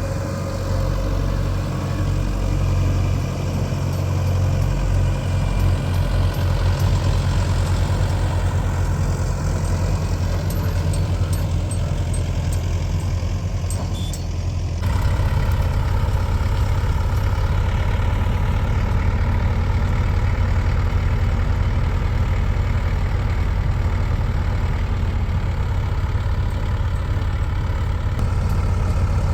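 Heavy diesel engine of earthmoving machinery running steadily, with a few faint clicks in the first half. About fifteen seconds in the sound changes abruptly to a steadier, slightly louder engine.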